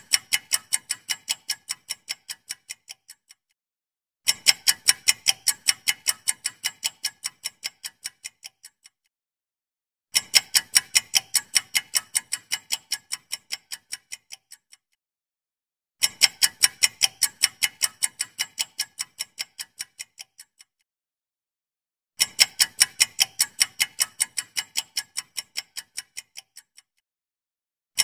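Countdown-timer sound effect of a ticking clock: quick ticks at about four to five a second, each run fading away over about four seconds and then breaking off, with a new run starting about every six seconds.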